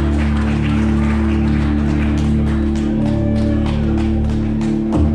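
Loud live band music: held low bass notes and chords under a run of quick percussive hits.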